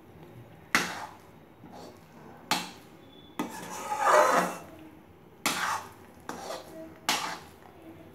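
Metal spatula scraping and knocking against an aluminium kadai as thick rice upma dough is stirred: a series of separate sharp strokes, about eight, with a longer scrape about four seconds in.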